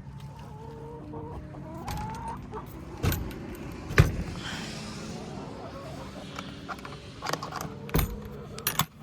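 Hens clucking and giving a drawn-out call, with a few sharp knocks and rattles, the loudest about four seconds in.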